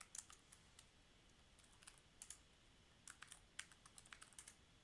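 Faint keystrokes on a computer keyboard, typed in short irregular bursts.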